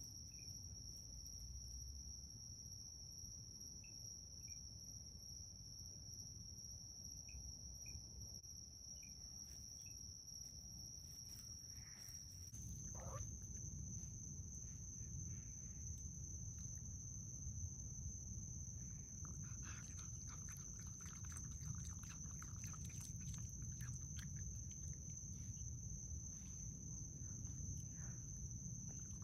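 Crickets trilling steadily on one high note, which steps slightly higher about twelve seconds in. In the second half, a raccoon eating from a plate makes a run of small clicks and chewing sounds.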